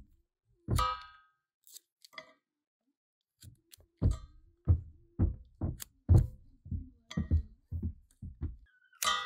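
Bypass pruning shears snipping through young yellow birch twigs, the cut pieces dropping into a stainless steel pot. A single snip with a short ring from the pot about a second in, then a quick run of crisp cuts at roughly two a second.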